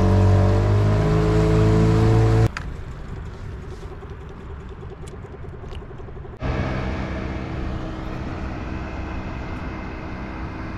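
Small boat's outboard motor running close by, its pitch easing down slightly over the first two seconds. The sound then cuts to a much quieter stretch with no engine tone for about four seconds. After that an outboard runs steadily at a lower level for the rest.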